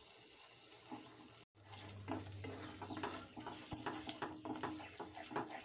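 Wooden spatula stirring thick mango-paneer batter in a non-stick kadhai: quiet, irregular scraping and squelching against the pan. It starts about a second and a half in, after a near-silent start.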